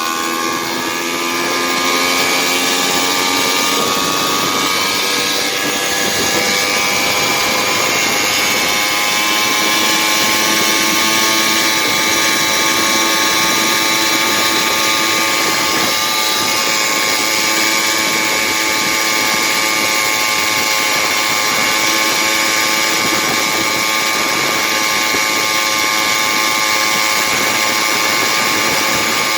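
Stihl MS460 chainsaw-based two-stroke engine on a motorized bicycle running at high revs under way. Its pitch climbs over the first couple of seconds, then holds steady.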